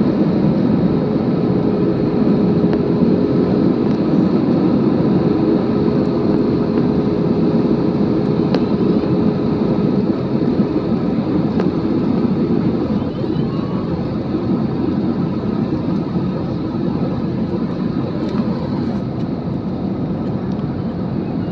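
Steady jet engine and rushing-air noise of an Air Arabia Airbus A320-family airliner on its landing approach, most likely heard from inside the cabin. A thin steady hum runs through the first half and fades out about halfway through, and the noise eases a little in the later seconds.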